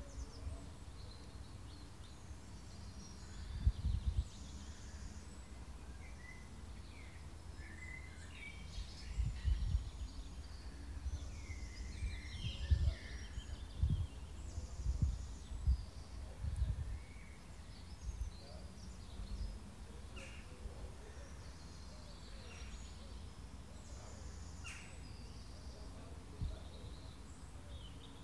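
Garden soundscape: small birds chirping and twittering, over a steady background hush with intermittent low rumbles.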